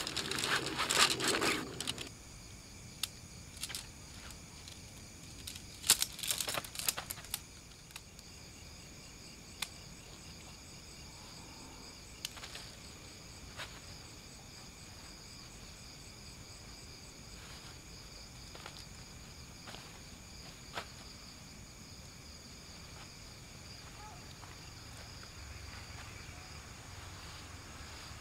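Nylon tent fabric rustling as it is pulled from its stuff sack and handled, with a second burst of rustling and a few sharp clicks about six seconds in. Under it, a steady high-pitched chorus of crickets and other insects.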